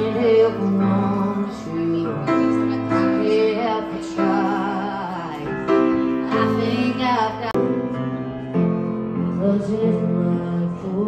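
A woman singing with piano accompaniment, holding long notes that waver. The music breaks off suddenly and picks up again about seven and a half seconds in.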